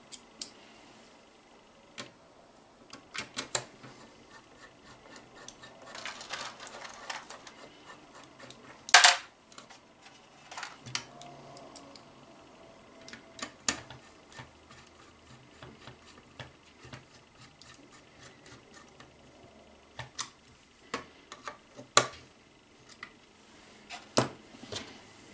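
Small 8 mm machine screws being picked from a plastic parts tray and driven by hand with a screwdriver: scattered light metallic clicks and taps, with one louder click about nine seconds in.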